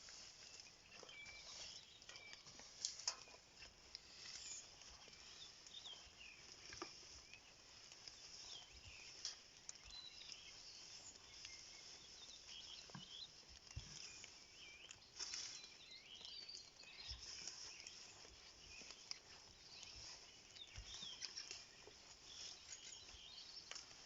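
Faint birdsong: small birds chirping and singing many short high notes over a quiet rural background, with a few soft knocks.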